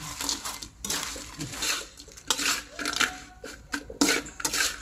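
Metal spatula scraping and clinking against a steel wok as it stirs crisp fried banana slices, in a series of irregular strokes.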